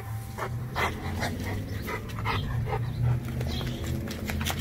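A wet Rottweiler panting in quick, uneven breaths.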